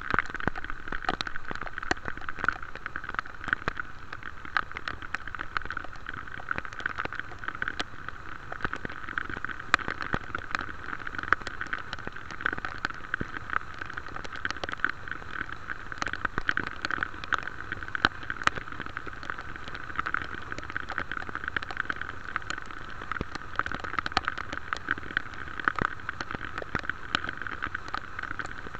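Steady rain, with many sharp drop ticks close to the microphone over an even hiss.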